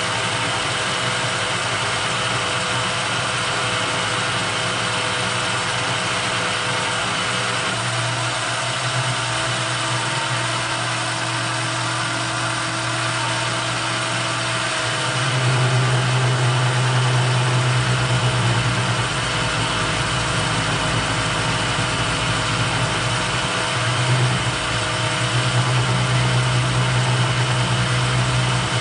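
Small metal lathe turning a bar, the motor and spindle running with a steady hum while the tool cuts. About halfway through the cut gets louder with a strong low drone, and stays so to the end: tool chatter, which the machinist puts down to too heavy a depth of cut for the little lathe.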